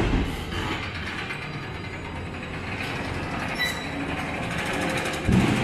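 Demolition machinery at work: a Volvo excavator digging into a concrete foundation and rubble, with steady clanking and grinding of metal and debris. There is a heavy thud at the start and another about five seconds in.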